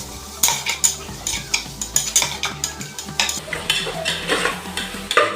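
Spatula stirring and scraping chopped onions as they sauté in hot oil in a pressure cooker, with a light sizzle under repeated irregular scrapes against the pot.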